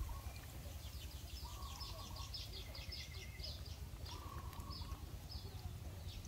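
Small birds chirping, with a fast run of high chirps in the middle, over a steady low rumble.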